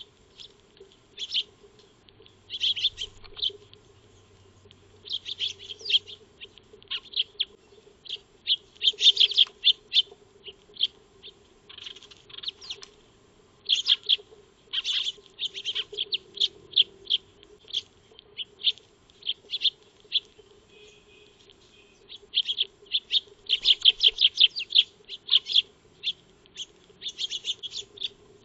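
Eurasian tree sparrows chirping: short, sharp chirps in irregular clusters, some in quick runs, with brief pauses between.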